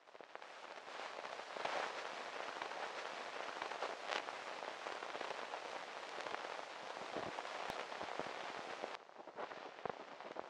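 Old-recording surface noise: dense crackling with scattered sharper pops, which drops away suddenly about nine seconds in, leaving a fainter crackle.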